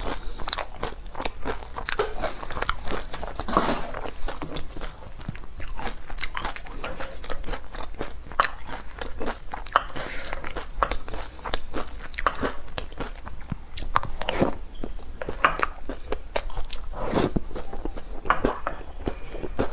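A person biting and chewing crunchy food close to the microphone, with dense, crisp crunching throughout.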